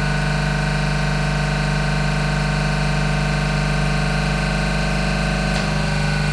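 York JK64 reciprocating refrigeration compressor running steadily on a test stand, a loud even hum. Near the end there is a short click and the low part of the hum shifts slightly.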